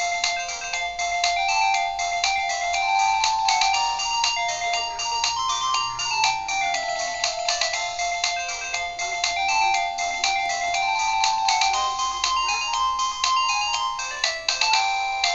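Modottel WTE-300 mobile phone playing one of its built-in 16-voice MIDI ringtones through its small loudspeaker: a synthesized tune of quick, short notes, a melody with accompaniment.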